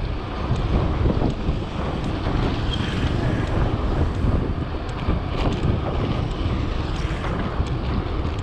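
Wind buffeting the microphone on a moving bicycle, a steady loud low rumble with a few faint clicks.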